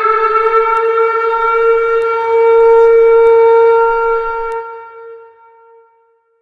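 Civil defense siren sounding an attack warning, holding one steady tone, then fading out over about a second and a half near the end.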